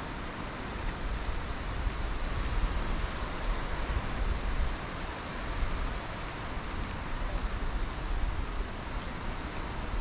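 Wind buffeting the microphone in uneven gusts, over a steady hiss of breeze and distant surf.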